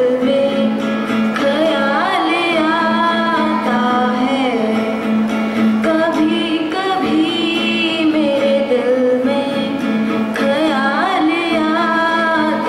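A girl singing a slow song into a microphone while accompanying herself on an acoustic guitar.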